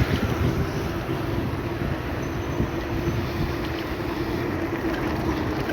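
Wind buffeting the microphone while moving through street traffic, over a steady low vehicle hum.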